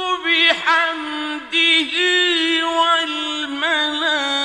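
A man's voice reciting the Quran, chanted slowly and melodically. He holds long steady notes and decorates them with quick wavering turns, with a brief break about a second and a half in.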